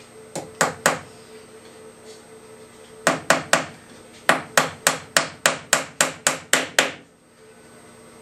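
Small tack hammer driving small nails into the bottom rails of a wooden beehive frame: a few light taps, then a run of quick, even blows about four a second that stops about seven seconds in.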